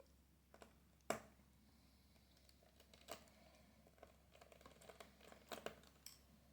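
Faint, scattered clicks and taps of small screws and a screwdriver being handled on a laptop's screen assembly, with one sharper click about a second in and a patter of small clicks near the end.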